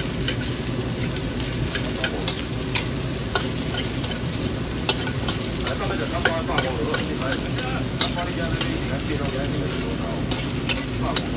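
Food sizzling and being stir-fried in a wok over a steady low roar, with the metal spatula striking and scraping the wok in sharp, irregular clanks about once a second.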